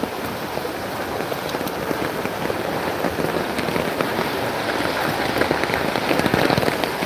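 Floodwater splashing and sloshing on a knee-deep flooded street, as a steady wash of water noise that grows louder and choppier over the last couple of seconds.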